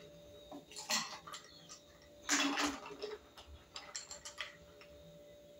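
Ladle clinking against a glass pitcher and drinking glass while an iced drink is ladled out, with light ice and liquid clatter. The loudest clatter comes about two and a half seconds in, followed by a few light clicks.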